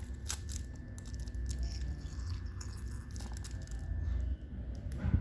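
Irregular handling noises, with rustling, crinkling and small clicks over a low rumble, and a sharper knock near the end.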